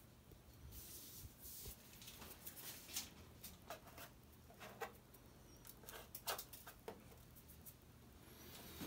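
Faint, scattered clicks and light taps of washing machine parts being handled during disassembly, over a low steady hum.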